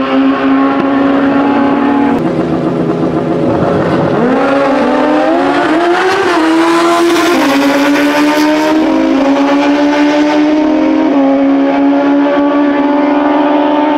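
Motorcycle engine running under way. It holds a steady note, drops briefly about four seconds in, then revs up as the bike accelerates and settles back into a steady cruise. Wind rushes over the microphone, strongest midway through.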